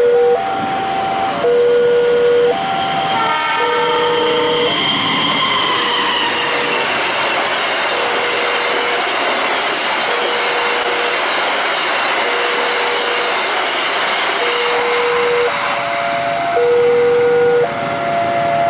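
Level-crossing warning chime repeating its two-note pattern. About three seconds in, the Argo Bromo Anggrek passenger train sounds its horn briefly, then runs past over the crossing for about ten seconds, its wheel and rail noise drowning the chime. After the train has gone the chime is heard plainly again.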